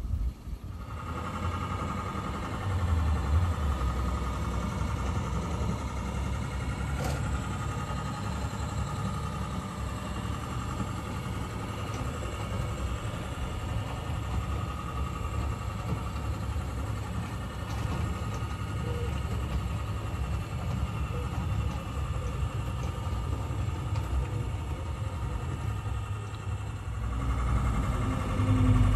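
Two Mamod Boulton model diesel locomotives double-heading a train: a steady mechanical whine with a low rumble of wheels on the track. It grows louder near the end as the locomotives pass close by.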